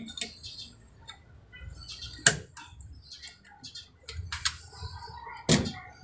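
Scattered light metallic clicks and taps of a hand tool working on the brass pipe fittings of a water booster pump, with two sharper clicks, one about two seconds in and one near the end.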